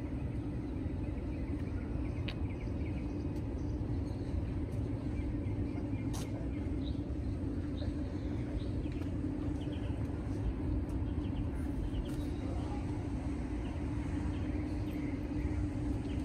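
Steady outdoor street rumble of traffic with a constant low hum, and a single sharp click about six seconds in.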